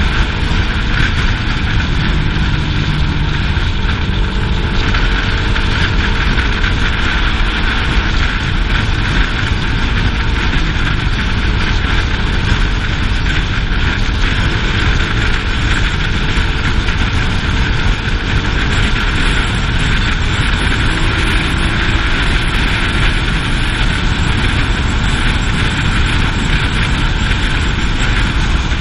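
Motorcycle ridden at steady speed and recorded from a helmet-mounted camera: wind rushing over the microphone covers most of the sound, with the engine running underneath and its pitch drifting slightly up and down.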